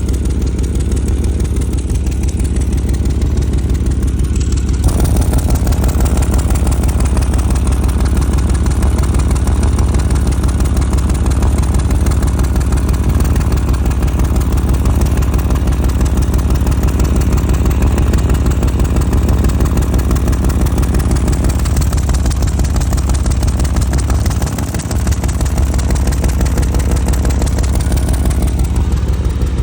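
2000 Chevy Tahoe's V8 idling, with a fast, even pulsing from an exhaust leak near the catalytic converter, heard from under the truck. The sound gets louder about five seconds in.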